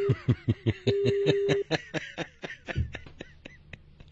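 A phone line's busy tone after the call is cut: a steady low beep that stops and sounds again about a second in. Bursts of laughter run over it and die away near the end.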